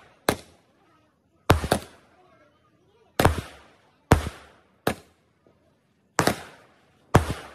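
Aerial fireworks bursting overhead: a string of sharp bangs, roughly one a second and some in quick pairs, each trailing off in a short echo.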